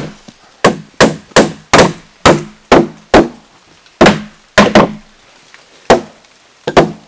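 A mallet knocking on timber-frame beams, about fourteen sharp knocks at an uneven pace with a short pause about two-thirds of the way through. The blows tap the joints down a little at a time all round to seat them.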